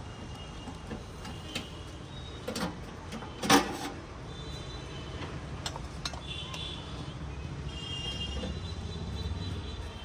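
A few short, sharp clicks and knocks, the loudest about three and a half seconds in, over a steady low rumble.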